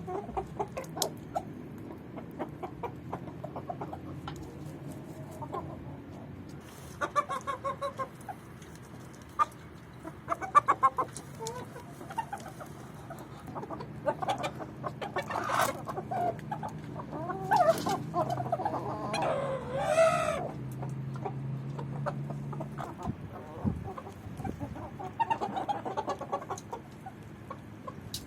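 Chickens clucking in short, irregular calls, with one longer drawn-out call about two-thirds of the way through.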